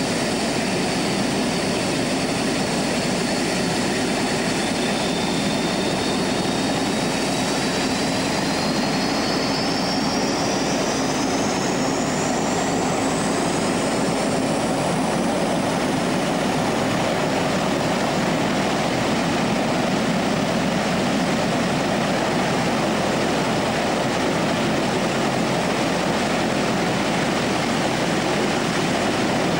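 SRN4 hovercraft's Rolls-Royce Marine Proteus gas turbines driving its propellers and lift fans, running loudly as a steady rushing roar. A high turbine whine through it rises in pitch over several seconds near the middle.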